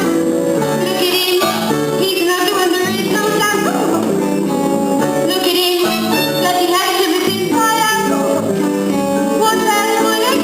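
Young female voices singing a stage-musical song over instrumental accompaniment.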